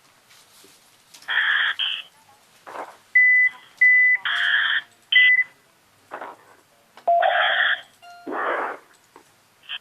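Bursts of narrow-band, telephone-like noise come and go, like a radio link keying on and off. Three short high beeps sound among them about three to five seconds in.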